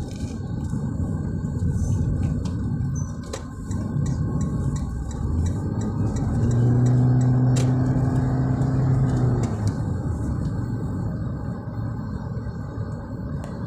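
Road noise inside a moving car's cabin: a steady low rumble of engine and tyres. A louder low hum swells for about three seconds in the middle.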